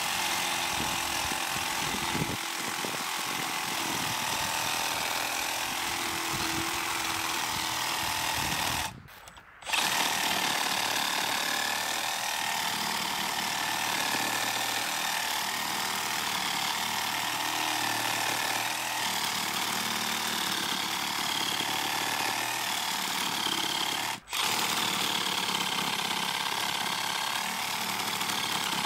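Makita DJR187 18V brushless cordless reciprocating saw cutting through a log, the blade sawing steadily in the wood. It stops for under a second about nine seconds in, then cuts on, with one more momentary break later.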